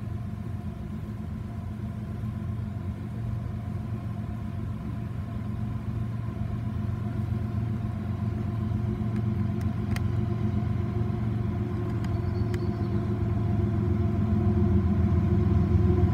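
CP ES44AC diesel-electric locomotive leading a grain train toward the listener: its GE GEVO twelve-cylinder diesel makes a steady drone with several steady tones, growing louder as it draws closer.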